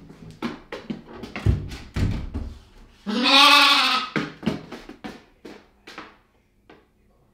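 A Valais Blacknose lamb bleats once, a loud pitched call of about a second starting about three seconds in. Sharp taps and knocks come before it, and quicker taps follow that fade out near the end.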